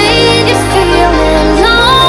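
Background music with sustained bass notes and a bending melodic line that may be sung.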